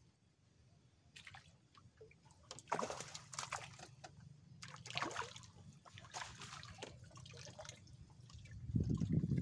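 A hooked fish splashing and thrashing at the water's surface, in irregular splashes and drips. A louder low rumble comes in near the end.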